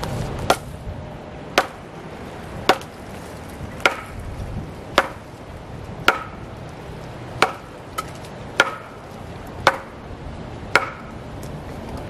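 Steady, rhythmic blows of a tool striking wood, about one a second: ten sharp strikes, with a lighter tap between two of them.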